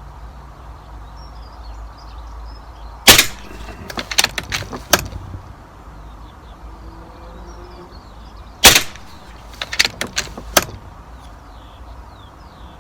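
Two air rifle shots about five and a half seconds apart, each a sharp crack followed by a quick run of small clicks as the action is worked and reloaded for the next shot.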